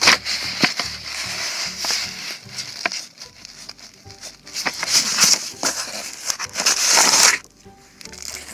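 Homemade vending machine being shoved back and forth by hand: continuous scraping and rustling with sharp clicks and knocks of plastic figurines inside, in uneven surges, cutting off suddenly about seven seconds in.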